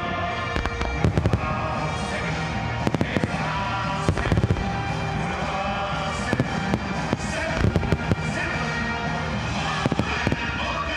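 Aerial firework shells bursting in clusters of sharp bangs every second or two, over continuous music.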